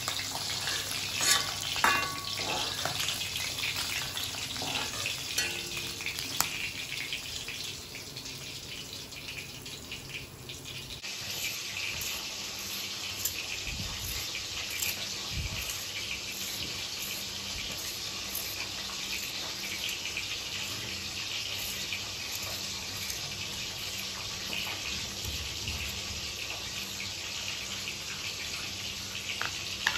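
Oil sizzling in a frying pan with a few sharp metal clinks. About eleven seconds in, this gives way to a steady hiss with faint, irregular scraping as a potato is peeled with a vegetable peeler on a wooden board.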